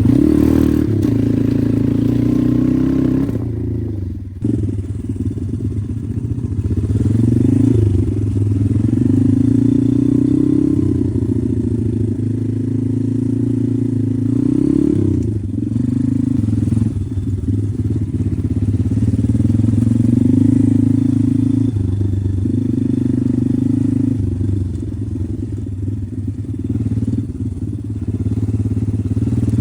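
Pit bike's single-cylinder engine running under load, its pitch rising and falling again and again with the throttle, and cutting back briefly about four seconds in and twice more later.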